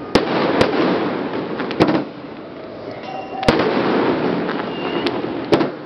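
Aerial fireworks bursting: about six sharp bangs, irregularly spaced, the loudest about three and a half seconds in, over a steady rush of noise.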